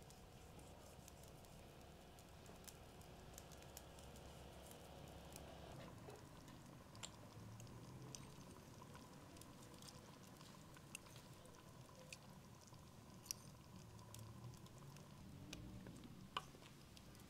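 Near silence, broken by a handful of sharp, scattered clicks and light taps, the loudest a little after the middle and near the end.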